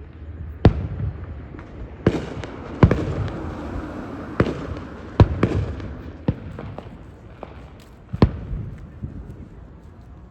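Aerial fireworks shells bursting: a series of about seven sharp bangs spread over ten seconds, each trailing off in a low rumbling echo, with a busier stretch of overlapping bursts in the middle.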